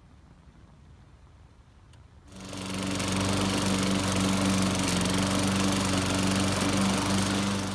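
Walk-behind rotary lawn mower's small engine running steadily at a constant speed while cutting long grass. It starts suddenly about two seconds in, after a faint hum.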